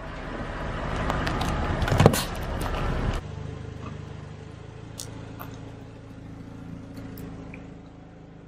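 Car tyre rolling slowly over concrete onto a row of gummy vitamins, its noise building to one sharp, loud snap about two seconds in. The sound cuts off abruptly a second later, leaving a quieter low hum with a few faint clicks.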